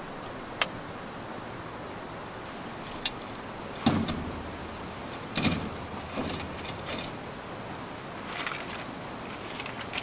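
Folding camp cot (Mountriver Click Cot) being assembled: two sharp clicks as frame parts snap into their fittings, then several clunks and rattles of the metal frame as the bed is pressed down, and a fabric rustle near the end.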